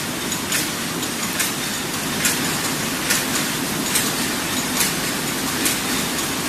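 Screw-making machinery (cold heading and thread rolling machines) running in a factory: a steady mechanical din with a sharp metallic strike repeating at an even pace, a little more than once a second.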